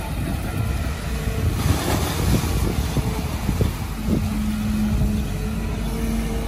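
Kobelco SK200 hydraulic excavator working, digging mud: a steady diesel engine drone with a hydraulic whine that drops out and comes back as the load changes. There is a brief rush of noise about two seconds in and several knocks from the bucket.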